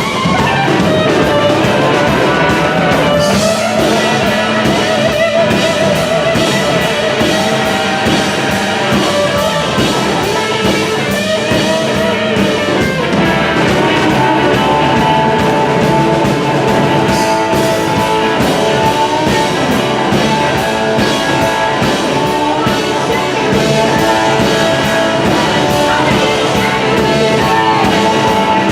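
Blues-rock band playing a boogie: guitar over a drum kit keeping a steady beat, with no singing.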